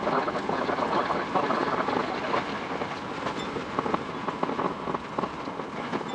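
Tokyo Metro 10000 series electric train running, its sound sped up six times into a fast, dense clatter.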